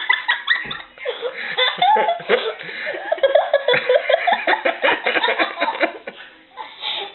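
High-pitched laughter and giggling in quick, broken bursts.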